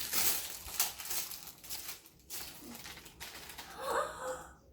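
Plastic packaging crinkling and rustling as the wrapped layers of an LOL Surprise doll ball are pulled open by hand, busiest in the first two seconds. A child's brief murmur comes near the end.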